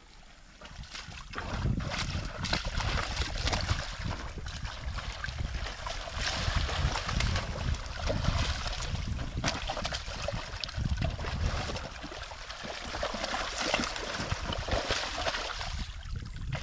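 Carabao wallowing in a muddy water-filled paddy channel: water and mud sloshing and splashing in uneven surges, starting about a second and a half in.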